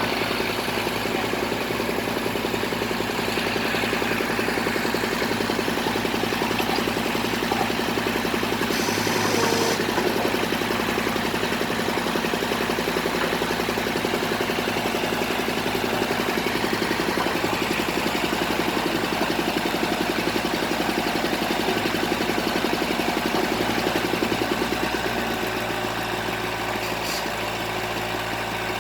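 Engine of a bored-pile drilling rig running steadily, dropping a little in level near the end.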